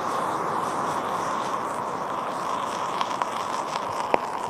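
Elios FDF hand flare burning with a steady hiss. From about three seconds in there are a few sharp crackles, the loudest pop coming near the end.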